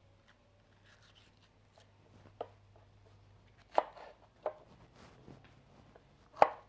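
Kitchen knife chopping green chiles on a wooden cutting board: a few irregular knocks of the blade striking the board, the loudest about four seconds in and near the end.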